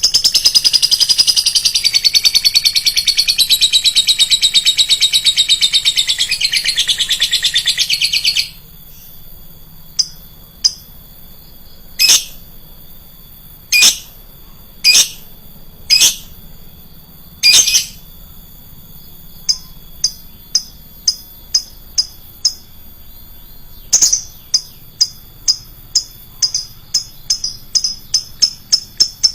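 Lovebird calling: a loud, rapid, high chattering trill for about eight seconds that stops abruptly. It is followed by sharp single chirps, spaced out at first and coming quicker and closer together near the end.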